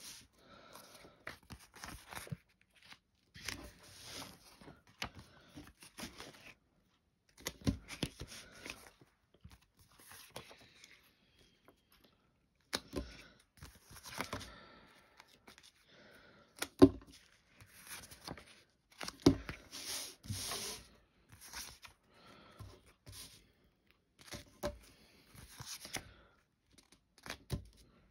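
Packaging being handled and torn: irregular bursts of crinkling and tearing with short pauses between them. The loudest are a couple of sharp knocks a little past the middle.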